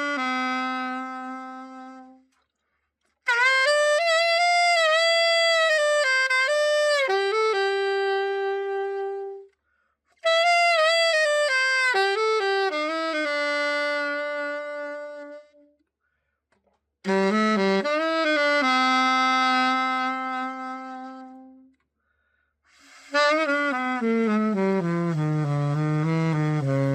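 P. Mauriat PMSA-202 alto saxophone being played after a full overhaul: four short melodic phrases with brief silences between them, the last one stepping down into the low register.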